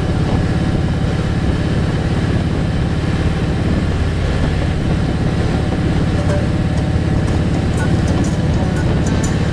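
A vehicle on the move: a steady low engine rumble mixed with wind and road noise at an even cruising speed, with a few light clicks in the last few seconds.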